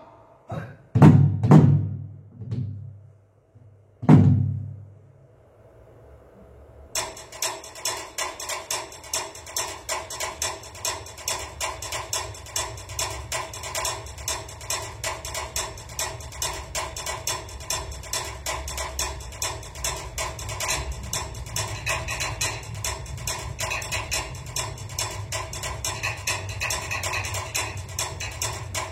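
Three heavy drum strokes with a deep ring. Then, about seven seconds in, instrumental music starts up with a quick, steady drum beat over held instrument tones.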